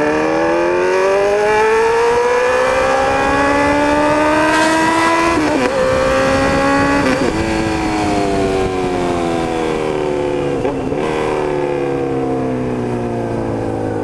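Honda CB1000's inline-four through a straight-through exhaust, pulling hard with the revs climbing for about five seconds. Two quick gear changes follow, then the revs fall away steadily as the throttle is rolled off, with one more brief shift near the end.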